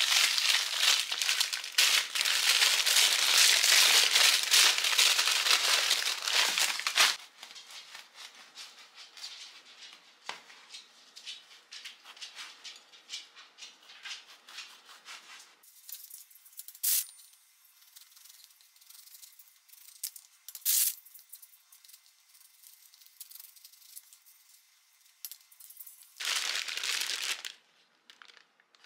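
Paper bread bag crinkling loudly as it is opened for about seven seconds, then a quieter rasping as a knife cuts through a bagel on a wooden cutting board. Two sharp clicks in the middle, and a plastic bread bag crinkling loudly near the end.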